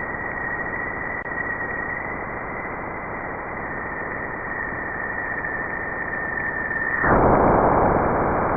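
Radio-like static hiss with a thin steady whistle held above it; about seven seconds in the whistle stops and the hiss turns louder.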